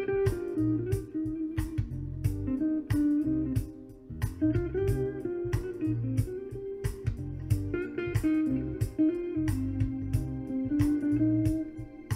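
Instrumental music with electric guitar, bass guitar and a steady drum beat, played back through NHL Pro Sound VL3400 outdoor PA loudspeakers and picked up by a microphone in the open air.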